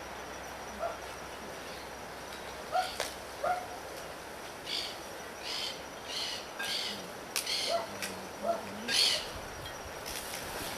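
Short bird chirps now and then, mixed with a run of brief hissing scrapes and a couple of sharp clicks.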